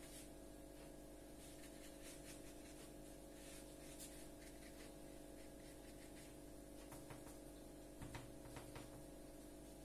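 Near silence over a steady electrical hum, with faint scratches of a watercolour brush working on rough paper. A few soft knocks come about seven to nine seconds in.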